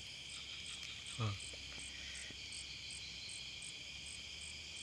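Night insect chorus: a steady high buzzing with a regular chirp repeating about three times a second. A short voice sound comes about a second in.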